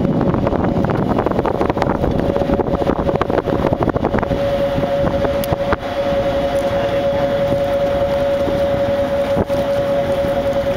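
Tour boat's engine running under way, with wind rushing across the microphone; a steady hum joins it about four seconds in.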